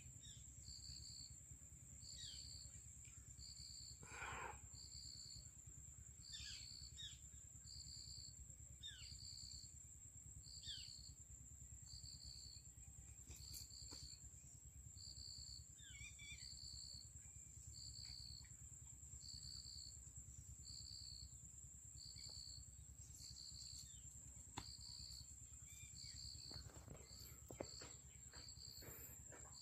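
Quiet outdoor ambience: insects keep up a steady high trill and a regular chirp about once a second, with a few short falling bird calls. A few faint clicks come near the end.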